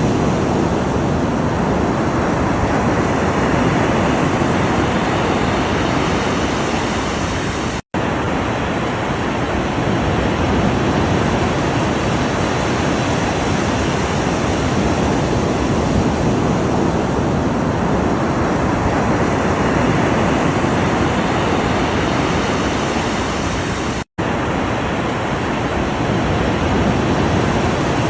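Ocean surf: a steady rush of breaking and washing waves that swells and eases gently. It cuts out to silence for an instant twice, about eight seconds in and again near the end.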